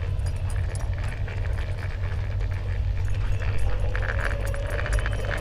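Steady low rumble of an electric skateboard's wheels rolling on asphalt, under a quick, continuous run of small clinks and clicks from a running husky's harness and leash.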